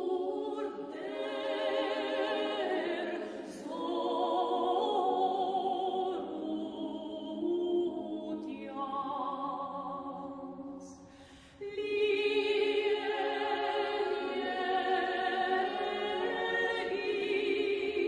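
A cappella choir singing a slow Armenian hymn, with wide vibrato on long held notes. The singing breaks off briefly about eleven seconds in and then resumes.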